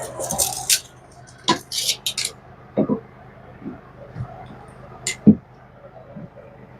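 Workshop handling noises: a scatter of short clinks, knocks and scraping in the first couple of seconds, then a few isolated knocks, the loudest about five seconds in.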